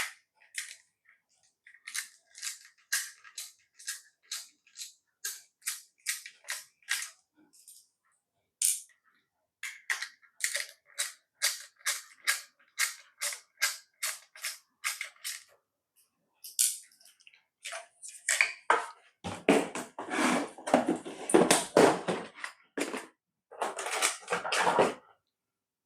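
Hand tools working on a plastic RC transmitter case: two long runs of small, evenly spaced clicks, about two or three a second, like a ratcheting screwdriver. Then some seconds of louder scraping and rustling.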